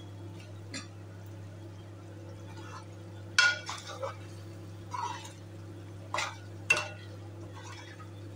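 A steel spoon scraping and clinking against an aluminium pot as a thick curry is stirred, in several separate short strokes, the loudest about three and a half seconds in and again near seven seconds. A steady low hum runs underneath.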